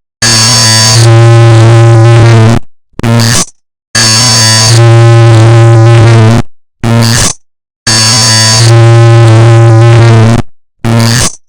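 A clock-ticking sample digitally stacked and distorted into a very loud, harsh noise with a low buzz and clashing tones. It comes in a repeating cycle of a long blast of about two and a half seconds, a short burst, then a moment of silence, three times over.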